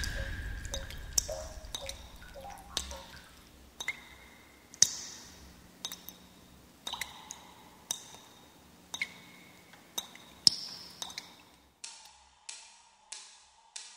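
Water dripping from a tap into a stainless-steel sink: irregular single drops, each a sharp plink with a short ringing tone, about one a second. Near the end, an even ticking of a little under two clicks a second takes over.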